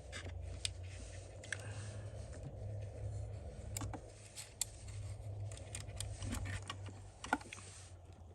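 Small plastic clicks and taps as a multimeter's battery compartment, battery and connector wires are handled and pushed into place, with one sharper click near the end, over a low steady hum.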